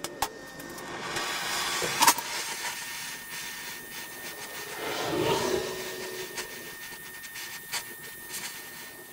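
Gas cutting torch: a few clicks, then a loud sharp pop about two seconds in as it lights, followed by the steady hiss of the flame cutting steel, swelling briefly in the middle.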